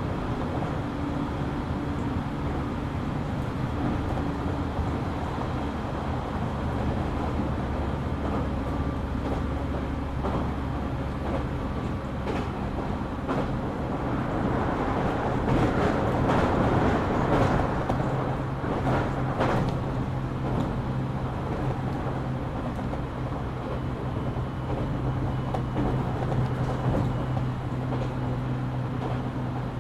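JR Kyushu 817 series electric train running between stations, heard from inside the car. Its running noise carries steady low motor tones that shift about 12 seconds in, and grows louder and rougher for a few seconds in the middle, with a few sharp clicks. This unit is an odd-sounding car whose running sound recalls a Keio 7000 series.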